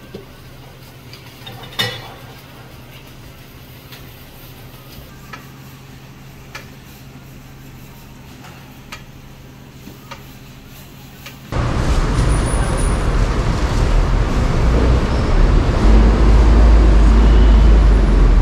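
Quiet hum with scattered light clicks and one sharp knock about two seconds in. About eleven seconds in, a cut brings a loud, steady rumbling noise, heaviest in the low end.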